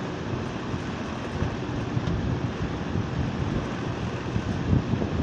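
A split-type air conditioner's outdoor unit running, a steady low, uneven noise from the replacement compressor, which the owner says has a failing bearing.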